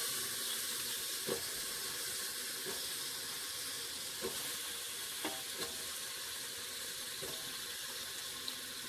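Masala sizzling steadily in a pressure cooker as cubes of bottle gourd are dropped into it by hand, with a few faint taps as pieces land.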